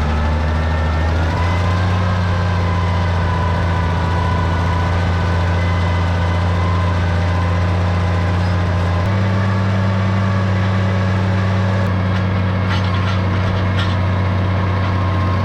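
Tractor engine running steadily while pulling a hay rake through windrows. Its pitch steps up slightly about a second in and again about nine seconds in.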